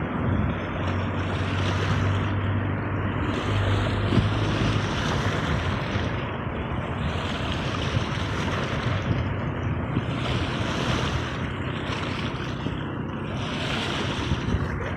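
Sea waves washing in, the surf swelling and falling back every two to three seconds. A low steady hum runs under it for the first few seconds.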